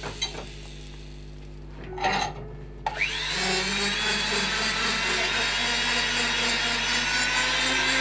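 Handheld electric power-carving tool switching on about three seconds in, its whine rising quickly and then running steadily as it grinds bulk off a block of carving wood. Before it starts there are a few light knocks and one short scraping burst.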